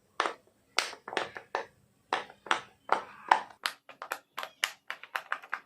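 Silicone pop-it fidget toy bubbles being pressed with two fingers, giving a quick run of sharp pops, about four a second.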